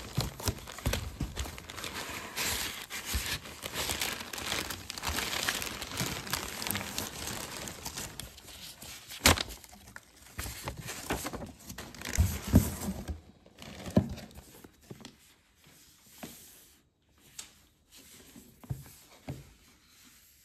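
Plastic packaging wrap crinkling and rustling as it is pulled out of a cardboard carton, with a few sharp knocks. About two-thirds in the crinkling stops and only occasional soft handling sounds of paper and box remain.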